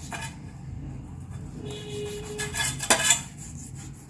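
Handling sounds of a cloth being worked in a dish of lemon juice and baking soda, with two sharp clinks against the dish about three seconds in.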